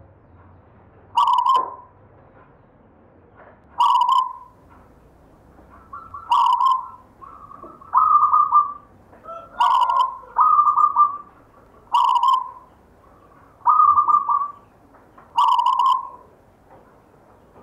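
Zebra dove (perkutut) cooing: short phrases repeated every one to three seconds.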